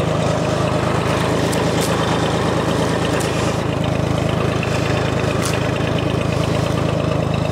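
John Deere 820 three-cylinder diesel tractor engine running steadily at a constant speed.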